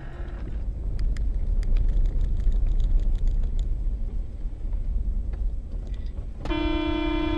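Car on the road: a steady low rumble of engine and road noise with a few faint ticks, then about six and a half seconds in a car horn starts, held at one steady pitch.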